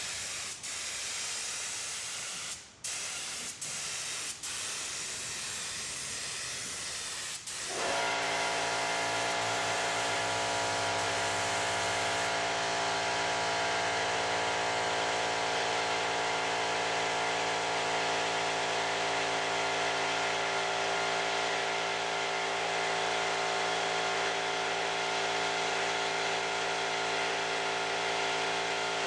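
Air spray gun hissing as primer is sprayed, with a few short breaks in the spray. About eight seconds in, a steady motor hum with several even tones starts and runs on under the hiss.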